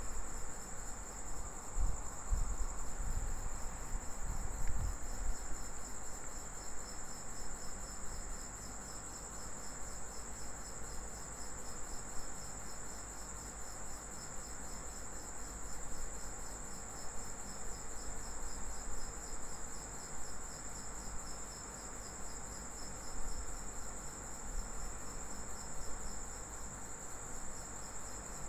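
Insects trilling steadily and high-pitched, with a fast pulsing undertone, and a few low rumbles in the first few seconds.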